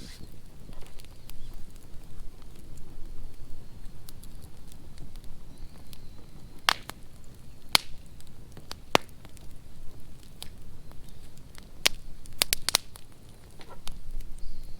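Wood bonfire crackling, with sharp pops at irregular moments and a quick cluster of them near the end, over a low rumble.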